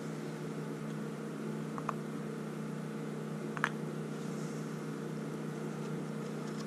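A steady low machine hum, with two small sharp clicks, about two seconds in and again near the middle, as the vacuum slide and diaphragm are worked out of a 1985 Honda Shadow's CV carburetor.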